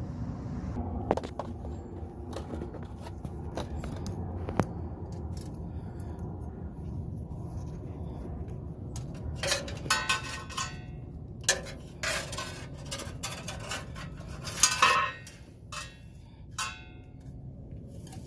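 Metal clinking and clanking with a brief ring after each strike, several strikes in the second half, loudest near the end, over a steady low rumble.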